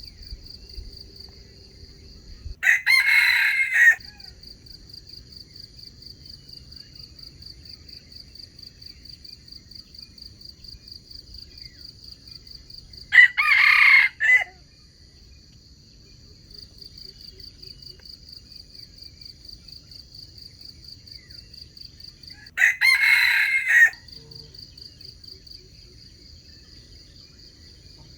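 A wild junglefowl rooster crowing three times, each crow short and loud, about ten seconds apart. Insects trill steadily throughout.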